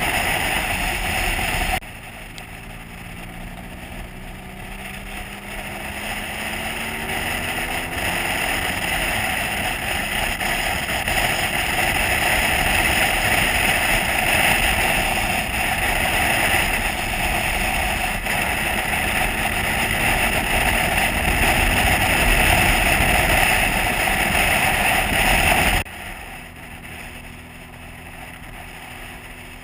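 Motorcycle riding at road speed: wind rushing loudly over the bike-mounted microphone with the engine underneath. About two seconds in the rush drops suddenly and the engine note rises as the bike accelerates, the wind building again with speed; near the end the rush cuts off abruptly, leaving a quieter, steady engine note.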